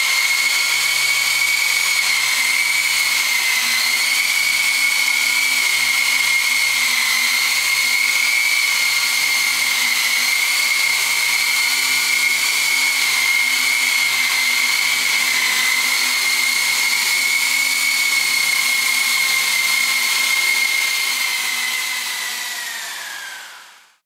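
Small electric coaxial RC model helicopter's motors and rotors giving a steady high-pitched whine in flight. Near the end the whine drops in pitch and fades out.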